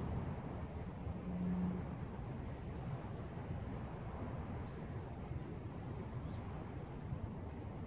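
Wind rumbling steadily on an outdoor camera's microphone, with a brief low hum about a second in.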